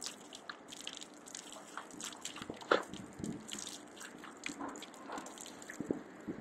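A dog lapping and snapping at a thin upward jet of water, with the water splashing and dripping onto a metal drain grate. The sound is a steady hiss broken by irregular wet clicks and splashes, the sharpest about two and a half seconds in.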